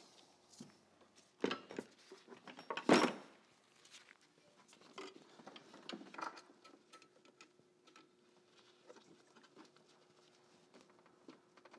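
Scattered metal clicks and knocks of hand tools being handled at the transmission, as pliers are brought to a bolt threaded into the clutch fork rod; the loudest knock comes about three seconds in.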